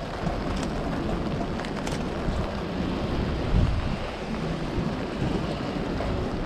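Steady rain on an umbrella held overhead, with low wind rumble on the microphone and a brief louder low thump about three and a half seconds in.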